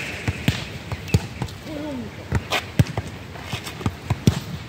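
A volleyball thudding against the asphalt court and being hit, about a dozen sharp, irregular thuds.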